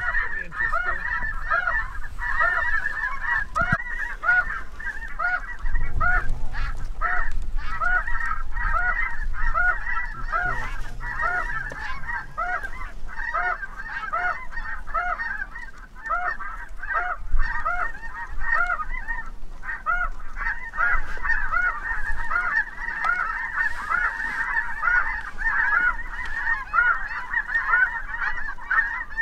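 Snow geese calling: a dense chorus of short, high honks overlapping many times a second, growing thicker in the last third. A couple of low thumps sit under it, about six seconds in and again near seventeen seconds.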